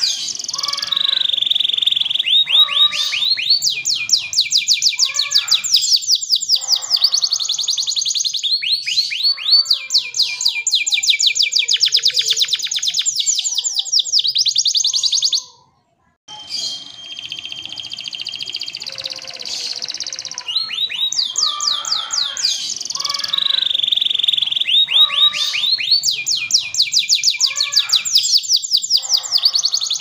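Domestic canary singing loud and almost nonstop: long rolls of fast, evenly repeated high notes and chirps, with the pace of the rolls changing from phrase to phrase. The song cuts out for under a second about halfway through, then carries on.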